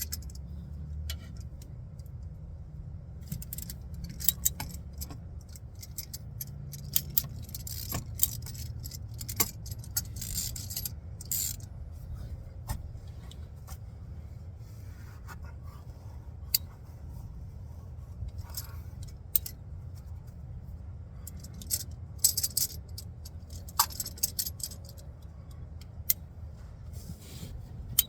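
Metal hand tools clinking and scraping in irregular sharp clicks as a wrench is worked on a stuck spin-on oil filter to break it loose. A steady low hum runs underneath.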